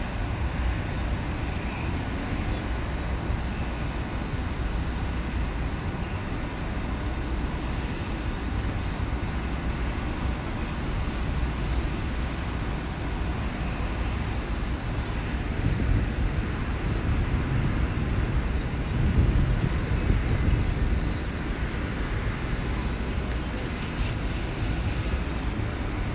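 Steady low outdoor rumble with no clear pattern, swelling a little about two-thirds of the way through.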